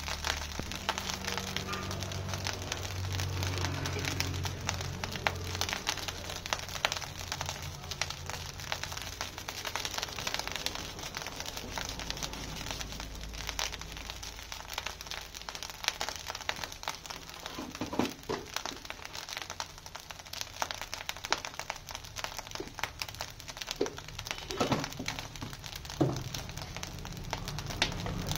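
Rice frying in a large iron wok, with a steady dense crackle of sizzling. A few knocks of the metal spatula against the pan come in the second half.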